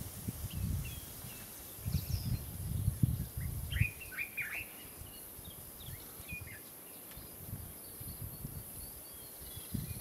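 Birds chirping: scattered short, high chirps, with a quick run of about four falling chirps around four seconds in. Bursts of low rumble come and go through the first four seconds.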